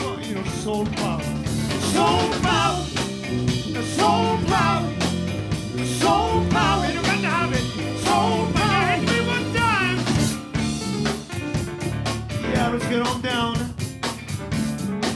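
Live R&B band playing: drums, bass, guitar and keyboards under a harmonica lead line of bending, wavering notes.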